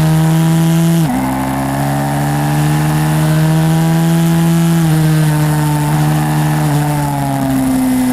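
A pit bike's small single-cylinder engine held at high revs; the pitch drops sharply about a second in, then climbs slowly, stepping down again twice near the end.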